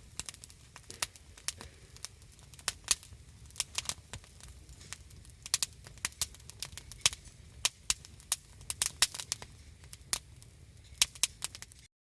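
Wood campfire crackling, with sharp irregular pops over a low steady rumble; it cuts off abruptly just before the end.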